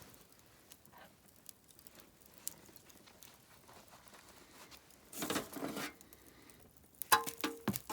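Faint scattered rustles, then a burst of crinkling and rustling about five seconds in, and sharper clattering knocks near the end.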